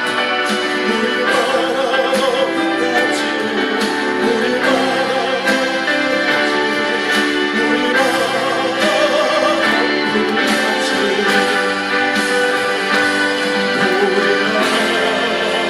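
Korean worship song music playing at a steady, loud level, in a stretch without clear sung words.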